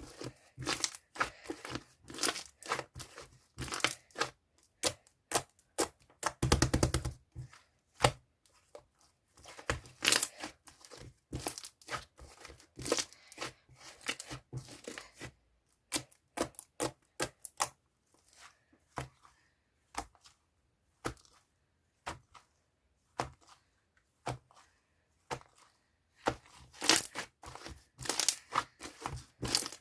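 Chewy yogurt slime being pressed and stretched by hand, making irregular sticky pops and crackles. A dense burst of crackling comes about six and a half seconds in; the pops thin out in the middle, then grow dense again near the end.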